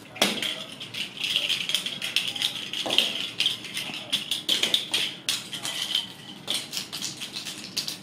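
A rattle-type cat toy ball being shaken or rolled, rattling in quick irregular clicks over a high jingling ring.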